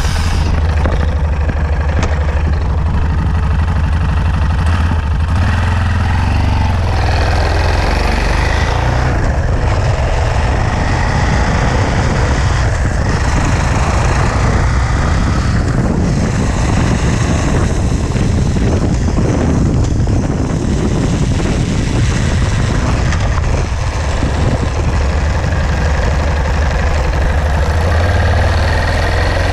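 Yamaha XT660Z Ténéré's 660 cc single-cylinder engine running under way through the gears, with heavy wind noise on the microphone. The gearbox makes a light knock on the shifts, typical of this bike's gear changes.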